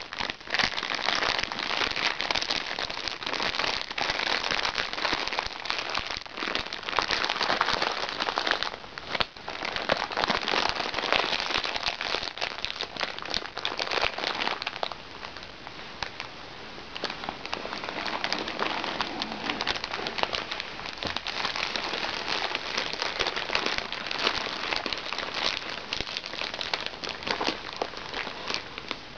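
A crinkly plastic-coated pouch being rubbed, pressed and squeezed by hand: dense, continuous crinkling and crackling, with a brief lull about nine seconds in.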